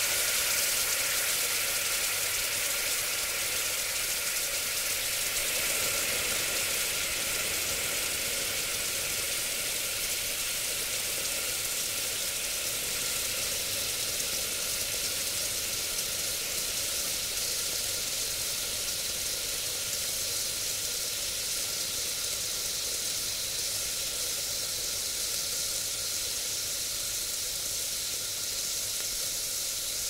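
Steam hissing steadily as it escapes, with a faint steady tone running under the hiss; it grows slowly a little quieter.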